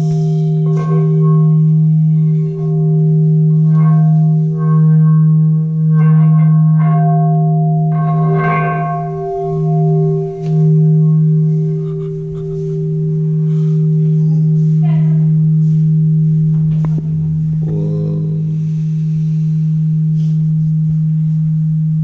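Large frosted quartz crystal singing bowl sung by a mallet worked around its rim, holding one low steady tone with higher overtones that swell and fade in a slow wavering pulse.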